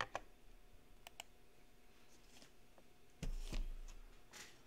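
A few scattered sharp clicks, then a dull thump about three seconds in and a brief rustle near the end.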